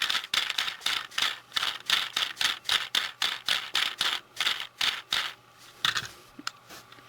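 Small plastic gears of a toy train wagon clicking rapidly as its wheels are rolled, turning the trophy on top. The clicking is fast and even, and thins to a few scattered clicks after about five seconds.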